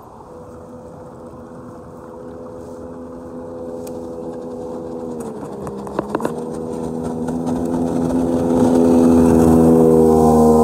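A motorboat engine running and drawing closer, growing steadily louder; its pitch dips briefly and recovers about six seconds in, with a few sharp clicks at that moment.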